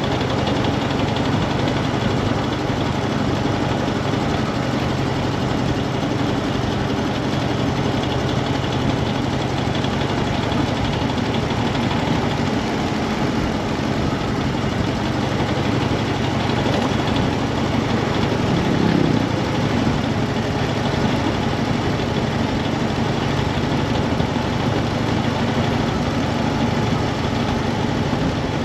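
Harley-Davidson FXDF Fat Bob's air-cooled V-twin engine running steadily.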